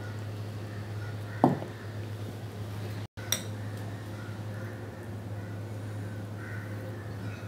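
A spoon knocks once, sharply, against a dish about a second and a half in, and there is a lighter click a little after the middle, while thick masala paste is spread on raw fish steaks. A steady low hum sits underneath.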